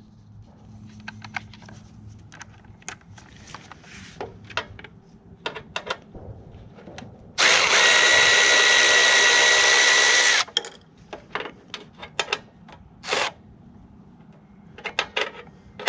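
Brushless motor of a Milwaukee M12 Fuel 3/8-inch cordless ratchet running for about three seconds with a steady whine, spinning a bolt out. Scattered clicks and knocks before and after.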